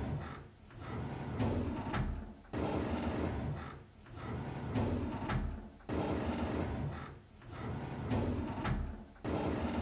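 Drawer sliding open, the same opening repeated about every three and a half seconds, each pass starting abruptly and running on as a scraping slide.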